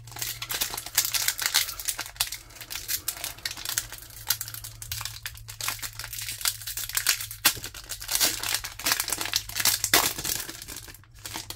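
Foil booster-pack wrapper crinkling in the hands and being torn open across the top, a continuous crackle with sharp snaps.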